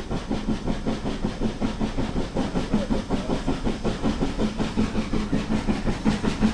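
Steam train running at about 30 mph, heard from a carriage window: a steady hiss and rumble with a quick, even rhythmic pulsing.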